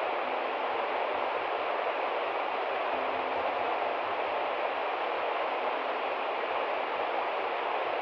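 River water rushing over rocks below a cascading waterfall: a steady, even rush of water with no breaks.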